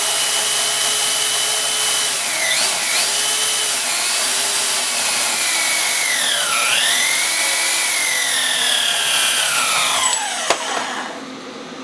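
Big bandsaw cutting through 1/8-inch aluminium flat bar: a loud, steady screech with whining tones that slide up and down in pitch. The sound drops away about ten seconds in as the cut goes through, with a sharp click.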